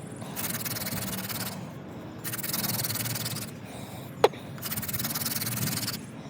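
Hand drill fire-making: a yucca spindle spun between the palms grinds into a water oak fireboard, making a rasping friction noise in strokes a second or two long with short pauses between them, and one sharp click about four seconds in. The spindle is worn short and this end of the fireboard is hard, so the ember is slow to form.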